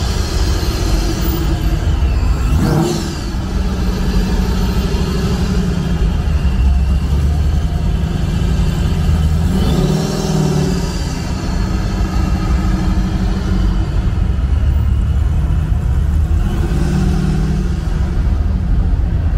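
First-generation Ford Mustang coupe rolling past at low speed, its engine running with a steady low rumble and brief revs about three seconds in and again about ten seconds in. Near the end an old lowered crew-cab pickup rolls by, with another short rev.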